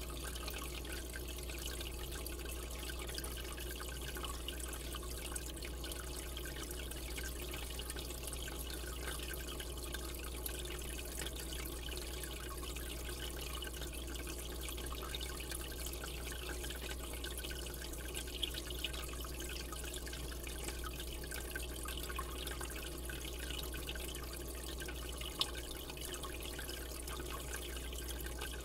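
Aquarium water trickling steadily, with a steady low hum beneath it and a few faint ticks.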